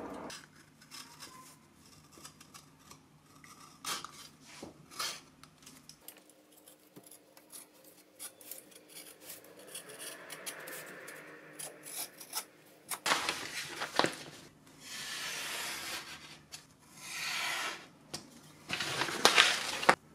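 A small knife blade cutting and scraping felt lining against MDF board, with light clicks of hand tools and material being handled. The work grows busier in the second half: several short bouts of rubbing and scraping, the loudest near the end.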